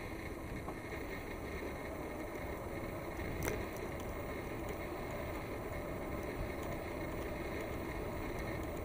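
Steady rush of wind and tyre noise from a moving bicycle, with one sharp click about three and a half seconds in.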